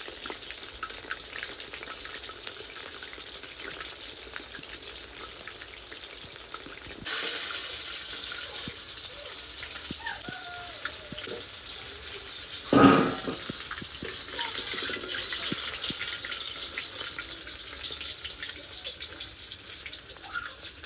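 Hot oil sizzling and crackling as food deep-fries, a steady dense crackle. A short loud burst about thirteen seconds in.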